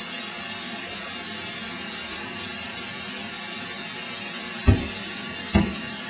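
Two heavy, dull thuds about a second apart near the end as the firebrick bloomery furnace's wall is struck to break it open for the bloom, over a steady rushing hiss from the burning furnace.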